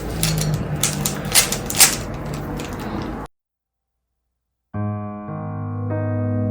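Plastic Rubik's Cube being twisted fast, irregular clicking and clattering for about three seconds. The sound then cuts out completely, and soft electric-piano music begins near the end.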